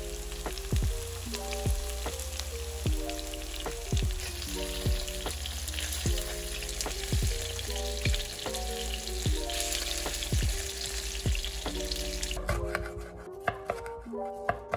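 Flour-coated chicken karaage pieces shallow-frying in hot oil, a steady sizzle, over background music with a steady beat. The sizzle stops about 12 seconds in, and a few knife strokes on a wooden cutting board follow.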